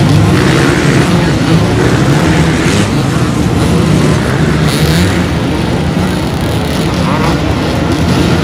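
Many off-road dirt bike engines running and revving at once in a dense, overlapping drone, under load as the riders struggle up a rocky climb.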